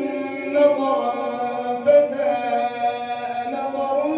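Quran recitation of Surat An-Naml: one voice chanting in melodic tajweed style, holding long notes that bend and ornament without pause.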